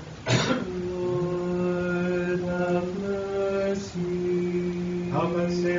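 Monks chanting an Orthodox liturgical melody in men's voices, holding long notes that step to a new pitch every second or so, with a sharp breath or hiss near the start.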